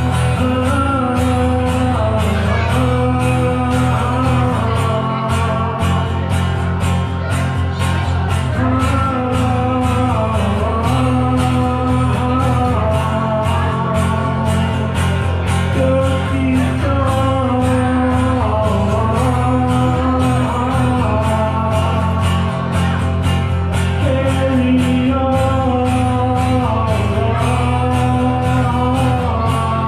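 Rock band playing a song: singing over guitar and a sustained low bass line, with a steady beat throughout.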